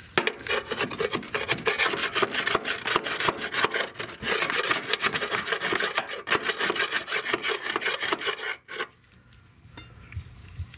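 Rapid, rough scraping of a flat metal scraper against old wasp nests packed around a car's fuel tank, stroke after stroke, then it stops suddenly about two seconds before the end.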